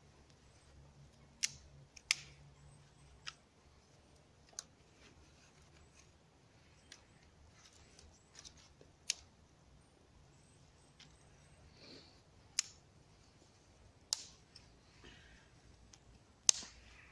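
Dry grass-and-twig tinder bundle catching in a fire pit: about eight sharp crackles and pops, irregularly spaced, over a faint steady background.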